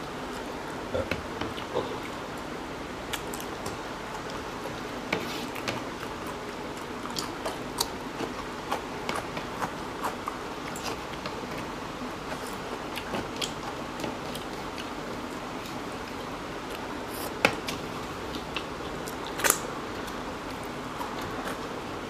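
Two people eating chicken curry and rice by hand: chewing and small clicks of fingers and food on plates, scattered irregularly over a steady background hiss, with two sharper clicks near the end.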